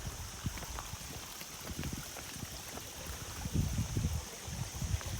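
A stream flowing, with a steady high hiss and uneven low swells of water that are loudest a little past halfway.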